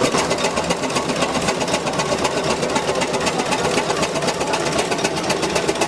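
Tractor engine running steadily with a fast, even clattering beat.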